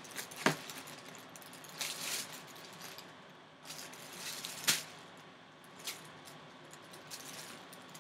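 Handling noise from a full-size football helmet being turned in the hands inside its plastic bag: plastic crinkling in short rustles, with a few sharp clicks, the loudest about four and a half seconds in.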